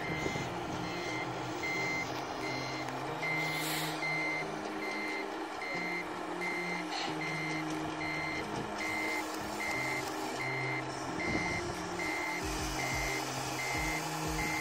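Reversing alarm beeping steadily, about one and a half short beeps a second, over a low engine drone that shifts in pitch now and then. It is probably a model truck's sound module backing up.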